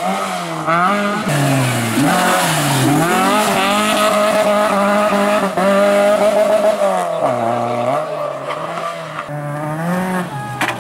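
Rally car engine revving hard on a stage. The pitch climbs and drops back several times as the driver lifts, changes gear and accelerates again.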